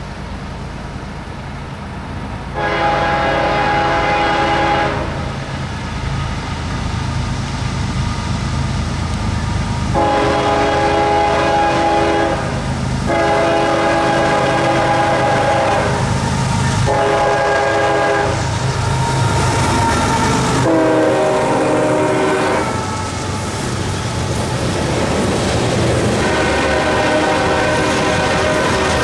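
Diesel freight locomotives, a pair of CSX ES44AHs, sounding the horn in a series of blasts, mostly long with one shorter, over a steady engine rumble. About three-quarters of the way through, the horn's chord drops in pitch as the lead locomotive passes.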